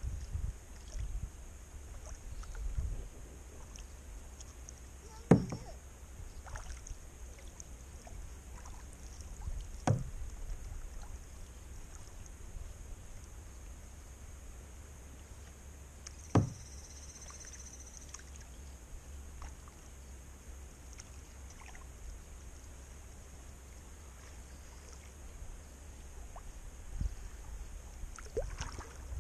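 Kayak being paddled on calm water, heard from a camera on its bow: a low steady rumble broken by sharp knocks, three loud ones about five, ten and sixteen seconds in and a few smaller ones near the end.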